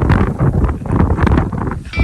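Loud wind buffeting the microphone in uneven gusts.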